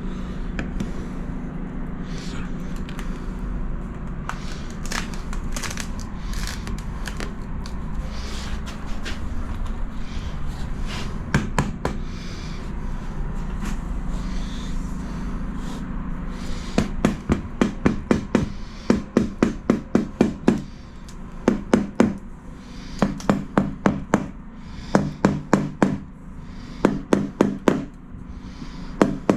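A tile being tapped down into its adhesive bed: quick runs of sharp knocks, several a second, in short groups. These start about halfway through, after a stretch of steady background noise with scattered clicks.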